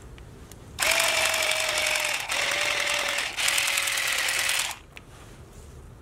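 Black & Decker hedge trimmer running in three bursts, each a second or more long, with two brief pauses, its blades cutting through a tray of cilantro microgreens.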